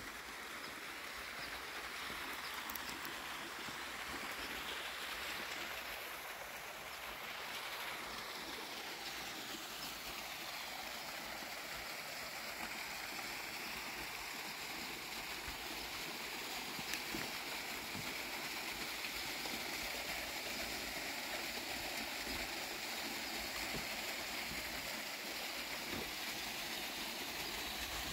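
Small garden waterfall spilling over a stone wall into a pond: a steady sound of splashing, falling water.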